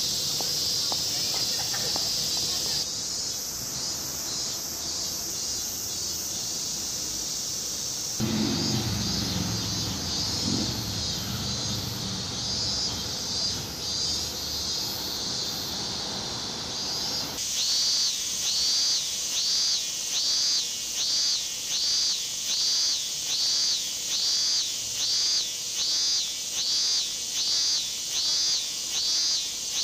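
Cicadas singing in summer trees: a steady high hiss at first, then from a little past the middle an evenly pulsing song of about one and a half pulses a second, each pulse rising and falling in pitch. A low rumble sits under the hiss for several seconds in the middle.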